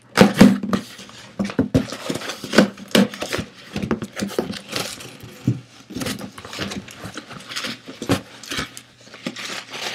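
Cardboard shipping box being opened by hand: paper and cardboard flaps rustling and scraping, with irregular knocks and clicks as the contents are handled.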